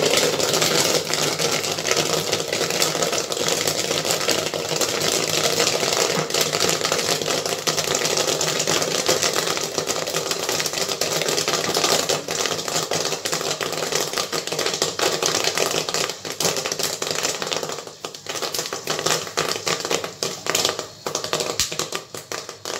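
Popcorn kernels popping fast in the stirred, gas-heated kettle of a popcorn machine, a dense continuous crackle of pops. After about sixteen seconds the popping thins to scattered single pops as the batch nears the end of its cook.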